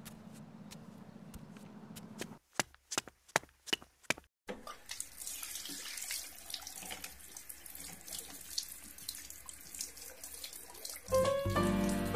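Tap water running into a bathroom sink while hands splash it onto a face, after a short run of sharp clicks about three seconds in. Music with distinct notes comes in loudly near the end.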